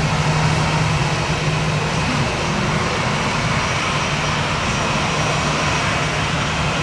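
Aircraft jet engines running steadily: an even rushing noise with a low steady hum underneath, unchanging throughout.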